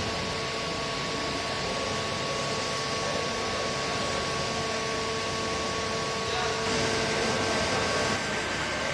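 High-speed circular sawing machine running steadily: a constant mechanical hum with a couple of steady whining tones. A higher whine joins about six seconds in, and the sound gets a little louder and hissier for a second or so after that.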